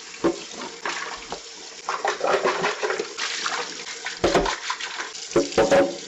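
Kitchen faucet running into a sink while a sponge scrubs a clear plastic coffee-maker water reservoir, with scattered knocks and rubbing of the plastic, the heaviest thump a little over four seconds in.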